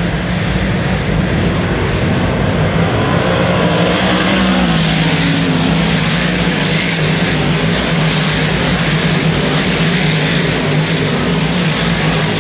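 Big-block dirt modified race cars' V8 engines running loud and continuous as the pack passes on the dirt oval. The engine pitch dips a little about four seconds in, then holds steady.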